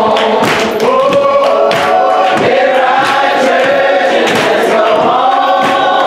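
Church congregation singing a gospel song together, many voices holding long notes in harmony. A steady beat of sharp hits about two a second runs under the singing.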